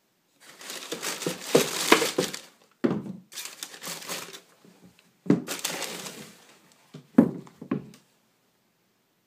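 Tissue paper crinkling and rustling in three bursts as sneakers are lifted out of a shoebox, then two sharp knocks as a shoe is set down on a wooden floor.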